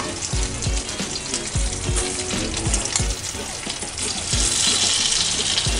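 Melted butter sizzling in a hot frying pan, the sizzle growing louder about four seconds in, over background music with a steady beat.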